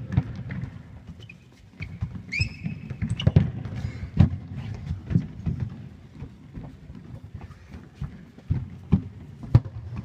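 Irregular thuds of a football being kicked and bouncing, and players' footsteps, on a sports-hall floor. Two or three short high squeaks come about two to three seconds in.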